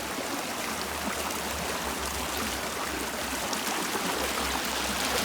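River water flowing, a steady rushing hiss.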